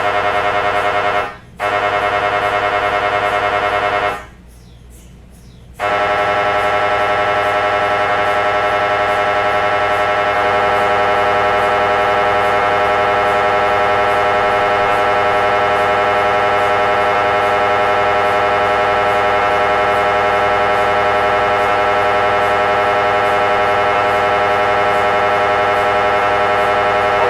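MRI scanner's gradient coils buzzing loudly during a scan sequence, a steady droning tone with many overtones. It breaks off briefly about a second in and again for about a second and a half around four seconds in, then runs on without a break.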